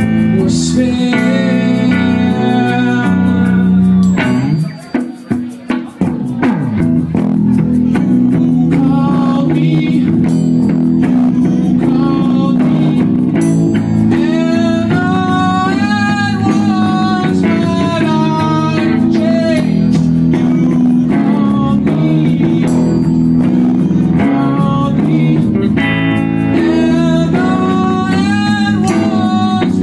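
Live band performing a song: a male singer with guitar, backed by electric bass guitar, in a bluesy style. The band breaks off briefly for a few short stop-time hits about five seconds in, then plays on with the singing.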